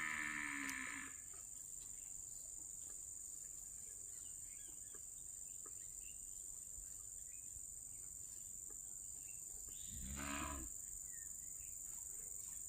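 Cow lowing twice, a short moo at the start and a deeper one about ten seconds in, over a steady high-pitched insect chorus.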